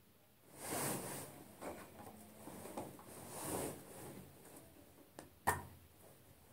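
Rustling and handling of a small clear plastic pot as it is worked open, with one sharp plastic click, the loudest sound, about five and a half seconds in.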